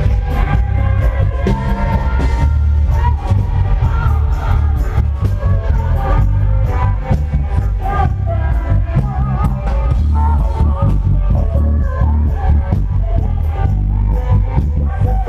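A live band playing through the stage sound system: heavy bass and drums under a singing voice, continuous and loud.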